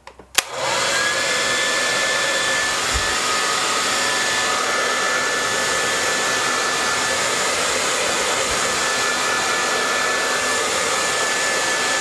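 A 1500 W hair dryer is switched on with a click and then runs steadily, a loud even rush of air with a thin high motor whine.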